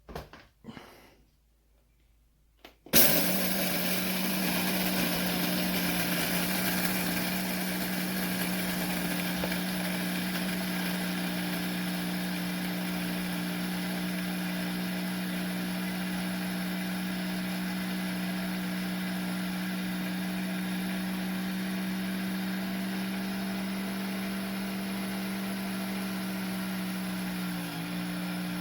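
A few light knocks and clicks, then an electric blade coffee grinder switches on about three seconds in and runs steadily with a high, even motor hum, dipping briefly in pitch near the end.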